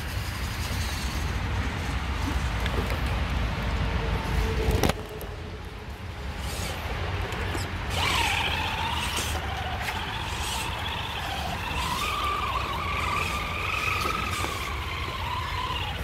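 Whine of a radio-controlled model's electric motor, its pitch wandering up and down with the throttle from about eight seconds in. Under it is a low rumble that drops off suddenly about five seconds in.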